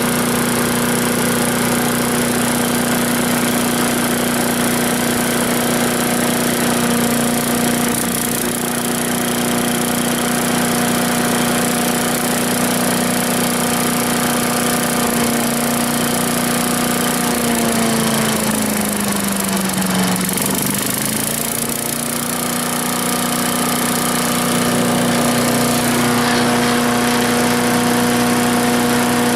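Troy-Bilt wood chipper's 250 cc Briggs & Stratton engine running steadily on its newly installed carburetor. About two-thirds of the way in its speed sags for a few seconds, then picks back up to a steady run.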